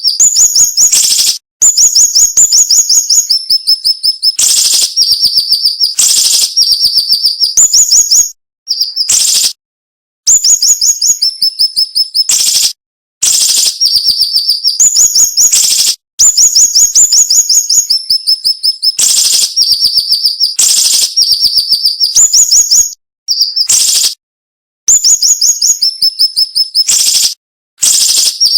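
Siri-siri bird singing sharp, loud, rapid-fire chirped phrases, each a fast run of high notes that steps down from a higher to a lower pitch. The phrases come back to back with short pauses between them.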